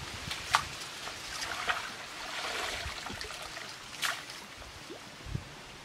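Shallow muddy water sloshing and splashing as people wade through it barefoot, with a few sharp splashes, the loudest about four seconds in.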